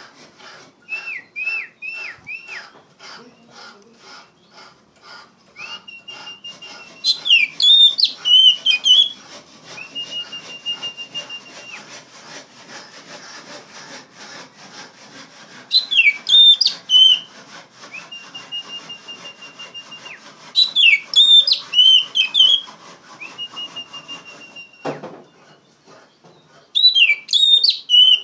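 Oriental magpie-robin (kacer) singing loudly. Long, level whistled notes alternate with four bursts of rapid rising and falling notes, a few seconds apart, over a faint regular ticking.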